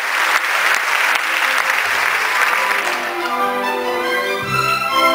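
Theatre audience applauding over an orchestra playing; the applause dies away about three seconds in, leaving the orchestra's held string notes, joined by lower notes near the end.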